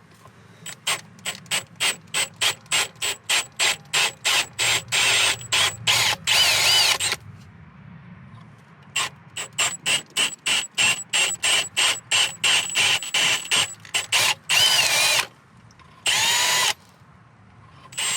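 Hand-held power drill drilling out the stripped exhaust-manifold bolt holes on a compact loader's engine, to tap them bigger. It goes in short trigger bursts, about three a second, with a few longer runs where the motor's pitch rises and falls.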